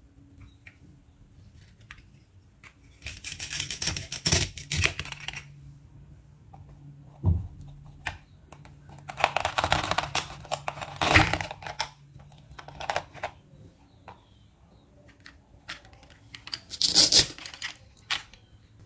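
Velcro ripping as plastic toy food halves are cut apart with a plastic toy knife, in three spells of rasping, with clicks and knocks of plastic on plastic between them.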